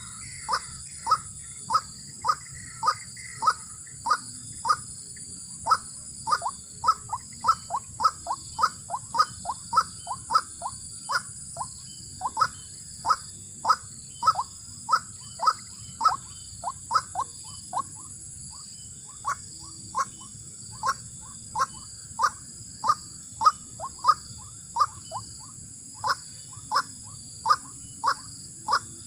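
White-breasted waterhen (ruak-ruak) calls: short, sharp notes repeated about twice a second in a long series, with a brief pause about two-thirds of the way through. A steady high insect buzz runs underneath.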